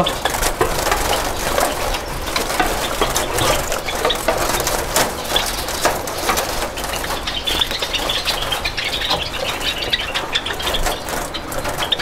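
Java sparrows fluttering and scrambling in a wire cage as a hand reaches in to catch them: a continuous run of rustling, wing flaps and light knocks against the mesh, with short high chirps now and then.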